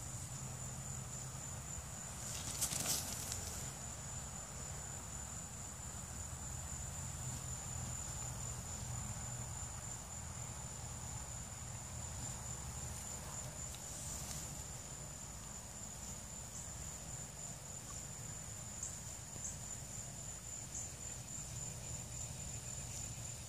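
Insects trilling in one steady high-pitched tone over a constant low background rumble. Two short, louder noisy bursts stand out, about three seconds in and again around fourteen seconds.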